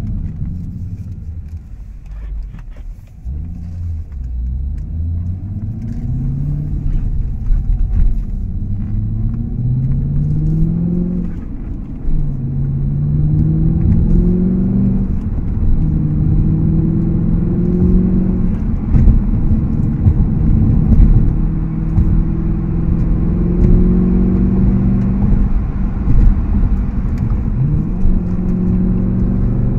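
Audi S5 engine through an AWE Tuning aftermarket exhaust while driving. The pitch drops in the first few seconds, climbs in several steps as the car accelerates through the gears, then settles to a steady note at cruising speed.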